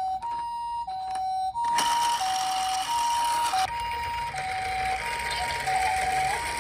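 Toy ambulance's electronic two-tone siren sounding the Japanese high-low "pee-po" pattern, about a second per high-low pair. A rushing noise joins under it about two seconds in.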